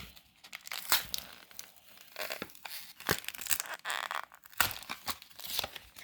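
Foil Pokémon TCG booster pack wrapper being handled and torn open, a run of irregular crinkles and tearing crackles.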